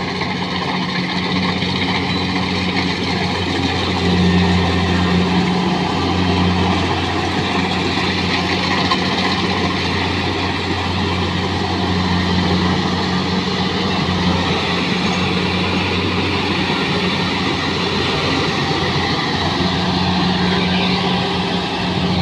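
Kubota DC-70G rice combine harvester working through standing rice: a steady diesel engine drone mixed with the continuous noise of its cutting and threshing machinery, briefly louder about four seconds in.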